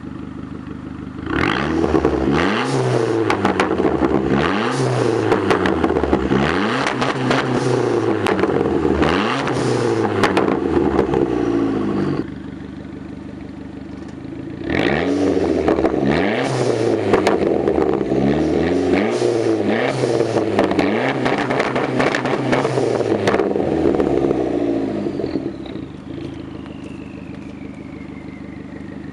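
Turbocharged 2.4-litre four-cylinder of a 2006 PT Cruiser GT, heard through a MagnaFlow cat-back exhaust, being revved in quick blips from idle, with crackles during the revs. Two runs of revs with a short drop back to idle between them, then it settles to idle with a faint falling whistle near the end.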